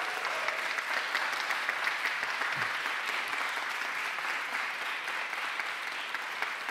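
Audience applauding steadily: a room full of hand claps.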